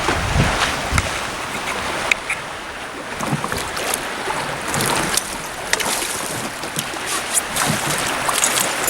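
Wind on the microphone and water lapping against a small fishing boat, with scattered light knocks and clicks.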